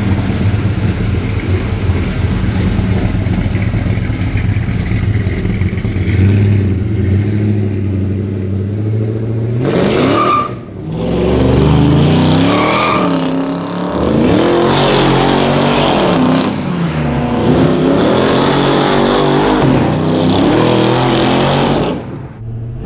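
Naturally aspirated 427 LSX V8 in a 1985 Chevy S10 pickup, running steadily at low revs for about ten seconds, then revving hard several times, its pitch climbing and dropping back with each acceleration.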